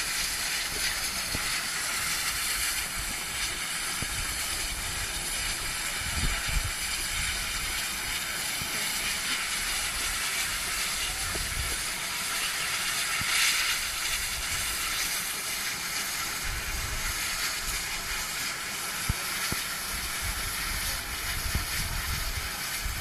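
Steam hissing steadily from a standing Bulleid West Country class steam locomotive, with a louder surge of hiss a little past halfway.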